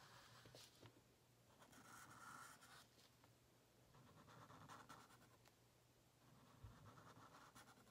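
Faint scratching of a Sharpie marker's felt tip drawing lines on paper, in a few separate strokes.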